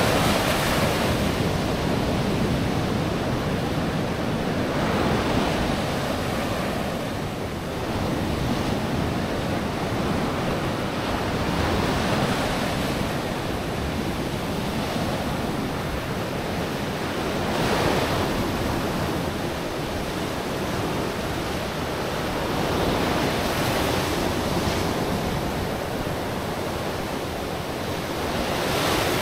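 Sea waves breaking and washing onto a sandy beach: a continuous rush of surf that swells every few seconds as each wave comes in.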